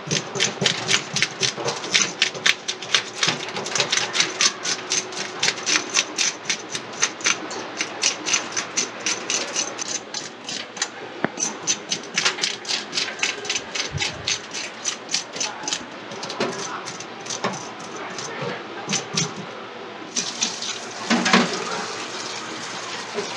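Hand fish scaler raking the scales off a squirrelfish in a stainless steel sink: quick rasping scrapes, about three a second, in runs with brief pauses. About twenty seconds in, tap water starts running over the fish.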